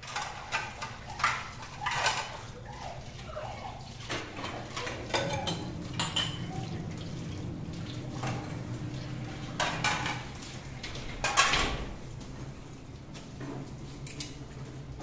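Kitchen work: dishes, pots and utensils clinking and knocking at irregular moments, with some water sounds, over a low steady hum.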